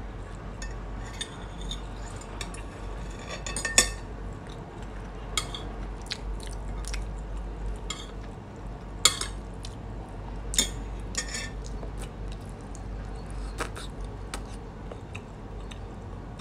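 Metal fork and spoon clinking and scraping against a ceramic plate of rice while eating: a handful of separate sharp clinks, the loudest about four seconds in and again near nine seconds, over a low steady room hum.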